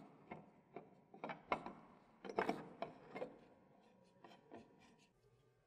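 Metal fuel filter bowl of a CFM LEAP jet engine being screwed by hand onto its filter housing: faint, irregular clicks and rubbing of metal and gloved hands, coming thick for the first three seconds, then sparser and quieter.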